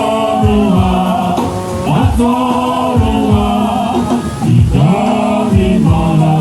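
Gospel praise singing by voices over instrumental backing with a steady low beat.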